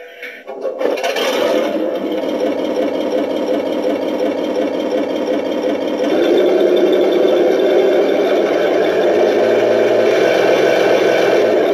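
Simulated tank engine sound from a Heng Long RX18 sound board, played through the RC tank's small speaker: it starts up about a second in, runs steadily, and grows louder about six seconds in.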